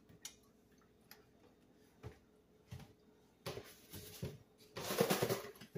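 Faint clicks and knocks, then louder rattling and rustling from about three and a half seconds in as a plastic spice container is picked up and handled over the skillet.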